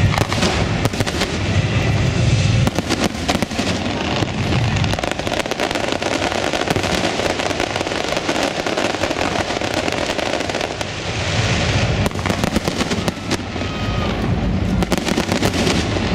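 Fireworks display: aerial shells bursting in a dense, unbroken barrage of many rapid, overlapping bangs and pops.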